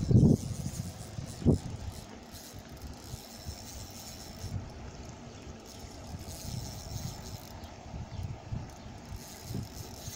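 Wind rumbling on the phone's microphone, uneven and low, with two louder low bumps in the first two seconds.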